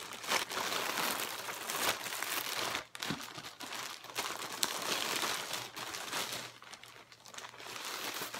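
Plastic packaging crinkling and rustling as clear plastic-bagged shirts are handled and pulled out of a plastic mailer. The crackle is irregular and dense, with a brief pause about three seconds in.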